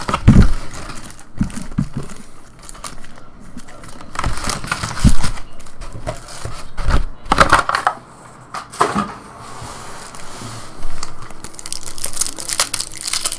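A cardboard trading-card box being opened and its foil card packs pulled out and handled, crinkling and rustling in irregular bursts.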